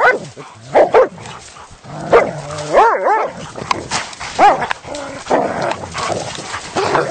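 Hunting dogs barking and yelping in short, irregular calls while they worry a caught animal. Some calls rise and fall in pitch.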